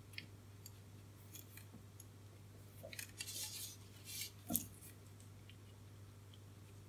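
Small metal hand tools handled on the bench: a few light clicks, then a cluster of metallic clicks and scraping, with the sharpest click about four and a half seconds in.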